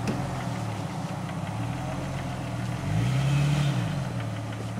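Vehicle engine idling, revving up once and dropping back about three seconds in.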